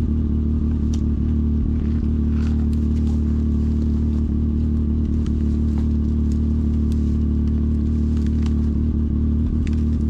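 Can-Am Maverick X3 side-by-side's turbocharged three-cylinder engine idling steadily, with a few faint clicks over it.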